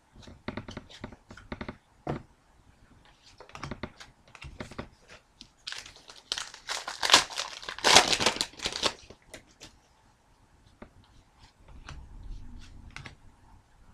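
Trading cards and packaging being handled: scattered clicks and rustles, with a loud stretch of crinkling, tearing wrapper about six to nine seconds in.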